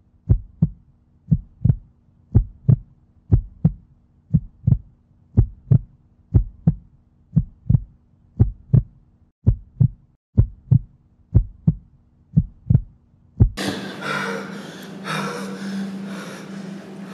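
A slow heartbeat sound effect, paired lub-dub thumps about once a second over a faint low hum. About three and a half seconds before the end it cuts to a dense, continuous wash of noise with a steady low hum.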